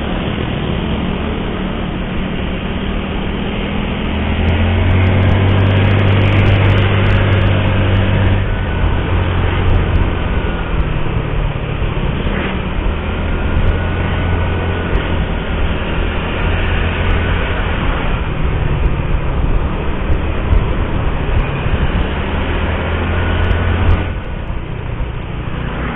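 Motor scooter's small engine running while riding through traffic, with wind and road noise on the microphone. The engine hum strengthens about four seconds in as the scooter speeds up, holds steady, then falls away near the end as it slows.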